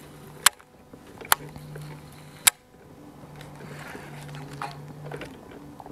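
Electric bow-mounted trolling motor humming in short spells as it holds the boat in place, with three sharp clicks in the first few seconds.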